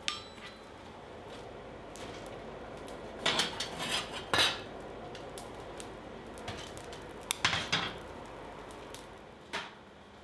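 A steel bar set down on an anvil rings briefly with a sharp clink, then comes several bursts of scraping, clinking metal clatter as the coal fire in a forge is raked with a steel tool.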